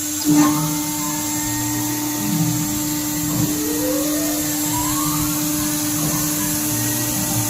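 CNC router running while milling aluminium: a steady high-speed spindle whine over a hiss of cutting noise, with a short loud hit just after the start and a rising whine from about three seconds in as the machine moves.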